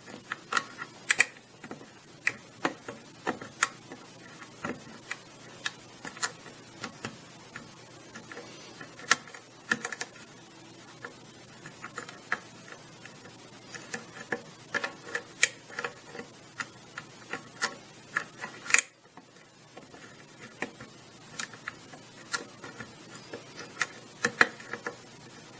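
Stainless steel hook pick and tension wrench working the pins of a six-pin pin-tumbler lock: scattered, irregular sharp metal clicks and ticks as the pins are probed during single-pin picking, with the lock held in a false set.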